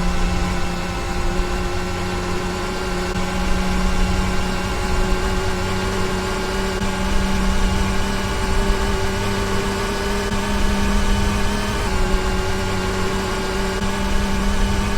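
Hotpoint washing machine running with a steady motor hum over a low rumble, the hum's pitch shifting slightly about twelve seconds in.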